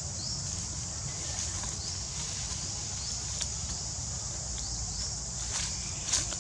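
Steady high-pitched insect drone over a forest floor, with short rising chirps repeating above it. Brief crackles of dry leaves sound as macaques shift about in the leaf litter, the sharpest about six seconds in.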